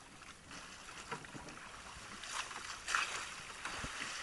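Sea water splashing and sloshing against a small outrigger boat's hull and bamboo outriggers, growing louder, with the strongest splashes about two and a half and three seconds in.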